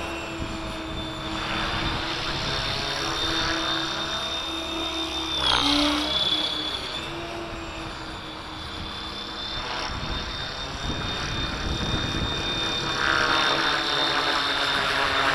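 Kasama Dune 600 radio-controlled model helicopter flying overhead, its rotors and drive giving a steady high whine over a lower buzz. About five and a half seconds in it passes close and the pitch drops. It grows louder again near the end as it comes back toward the microphone.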